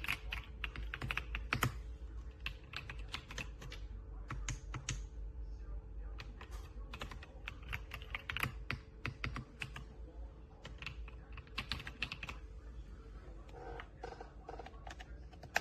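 Typing on a mechanical keyboard: quick runs of keystrokes in bursts with short pauses, ending near the end.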